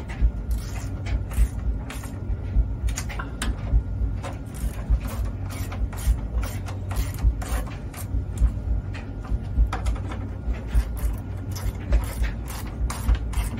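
Irregular clicks and small knocks of hand tools and metal parts being worked on the Vaillant gas boiler's fan and burner assembly, over a steady low hum.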